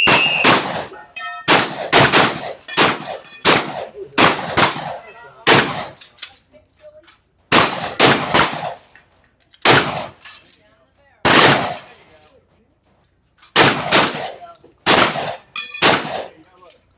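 A shot timer's high start beep, then rapid shotgun fire at steel plate targets: about twenty shots in quick strings, with short pauses between strings and the odd clang of steel being hit.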